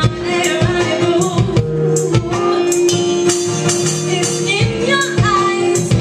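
Live female lead vocal singing over band accompaniment, with a long sustained note in the middle and percussion hits on a steady beat.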